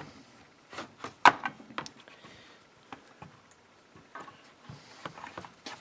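Scattered clicks and knocks of hard plastic and metal chainsaw parts being handled during reassembly, the sharpest knock a little over a second in.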